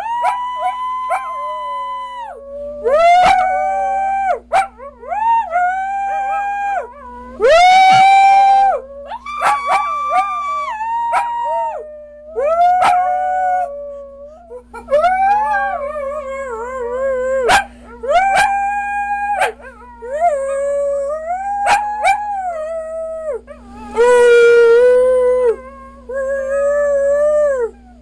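Small curly-coated dog howling in a long run of held notes, about a dozen, each lasting a second or two with brief breaks between, some bending up or down in pitch: the dog 'singing'.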